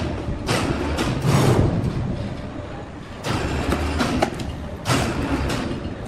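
Heavy sawmill machinery rumbling and clattering in irregular surges of a second or so each, like steel rolling on rails, as a log is handled on the carriage track.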